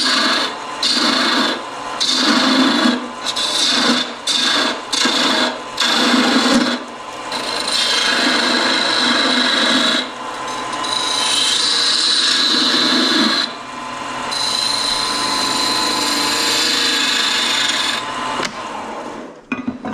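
A turning tool cutting a spinning wooden knob blank on a Laguna wood lathe. It starts with short, separate strokes and changes to longer continuous passes about seven seconds in, stopping shortly before the end.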